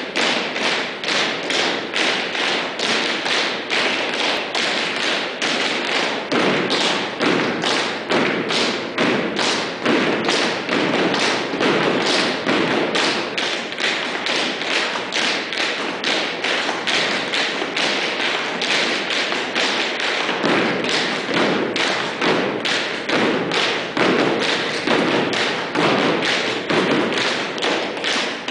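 A group of dancers' feet striking a studio floor together in a quick, steady rhythm of taps, toe touches and digs, several strikes a second.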